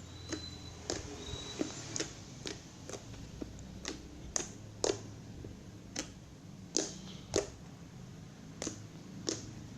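Slime being pressed and poked by hand, giving a series of sharp clicking pops at irregular intervals, about one or two a second.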